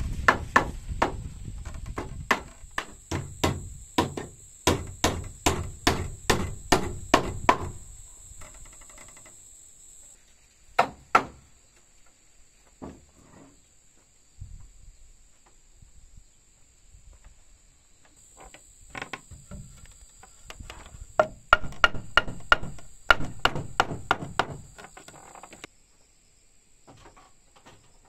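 Hammer striking timber in quick, even blows, about two a second, in two runs with a few single blows in the pause between.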